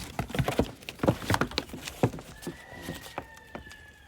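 A goat's hooves clattering and knocking on the stand, a quick run of sharp knocks over the first two seconds or so. A thin, high, steady tone follows to the end.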